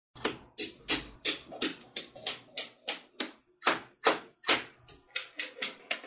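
Small metal magnetic balls clicking as they snap together and are pressed into blocks: a quick, uneven run of crisp clicks, about three or four a second, each with a short rattling tail.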